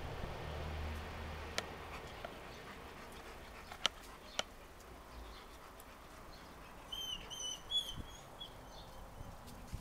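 Faint background with a few sharp clicks, then about seven seconds in a quick run of high, squeaky chirping calls from an animal, lasting about a second and a half.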